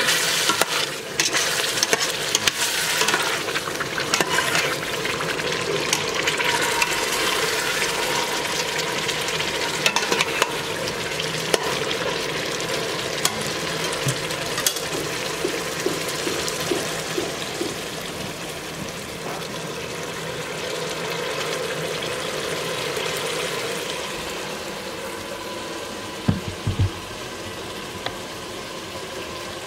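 Lamb and tomato-paste stew sizzling and bubbling in a stainless steel pot, with a metal spoon scraping and clicking against the pot as it is stirred for the first part. The sizzle goes on more steadily afterwards, and a couple of short knocks come near the end.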